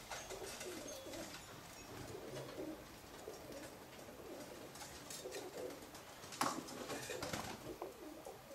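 Light scraping strokes of a small metal tool scoring lines into the wet clay and fire-cement coating on a steel sword blade, with one sharper scrape about six and a half seconds in. A bird coos softly in the background.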